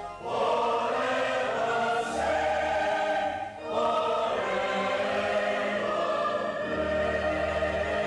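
Church choir singing in sustained phrases, with a brief break for breath about three and a half seconds in.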